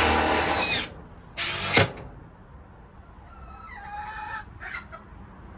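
A power drill driving screws in two short runs, the first ending about a second in and the second about a second and a half in. Then a rooster crows once, about three seconds in.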